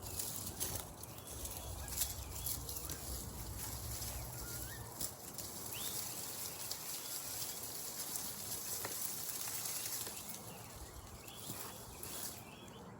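Rustling and crackling of dry plants and garden debris being pulled and handled, with a few faint bird chirps.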